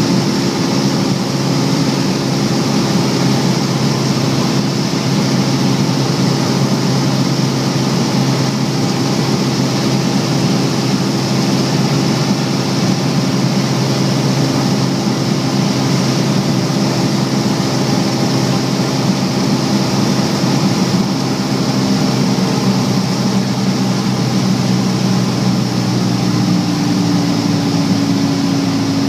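Small single-engine propeller airplane's piston engine and propeller droning steadily, heard from inside the cockpit. The engine note drops slightly in pitch near the end.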